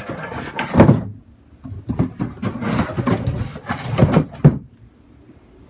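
Handling noise of equipment and accessories being moved by hand: rustling and knocking, with sharp thumps about a second in and again about four seconds in.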